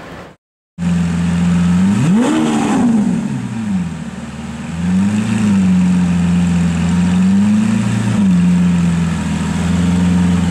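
Lamborghini Aventador V12 with an LNB aftermarket exhaust idling and revved. It cuts in after a brief silence, rises and falls in one sharp rev about two seconds in, then gives two smaller revs.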